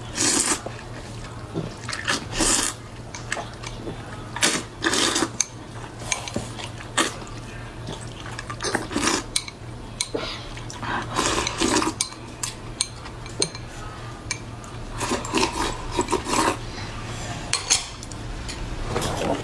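Close-miked eating of Chinese food: irregular bursts of wet chewing and slurping, with utensils knocking against dishes, every second or two.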